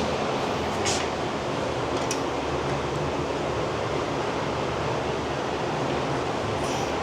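Steady hiss-like background noise, like a fan or air handler running, with two faint light clicks about one second and two seconds in.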